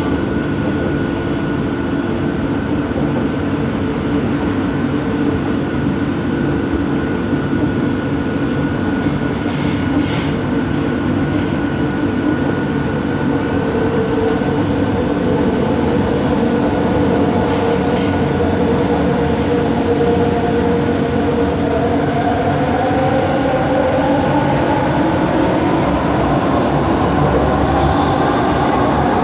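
Bombardier Innovia ART 200 metro train running, heard from inside the car: a steady rumble with a motor hum. Over the last several seconds a motor whine rises in pitch.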